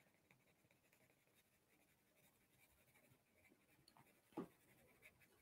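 Very faint scratching of a watercolour pencil shading on drawing paper, otherwise near silence, with one short, soft knock near the end.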